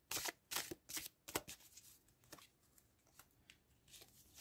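A tarot deck being shuffled by hand: short papery rasps of cards sliding against each other, several in quick succession in the first second and a half, then sparser ones.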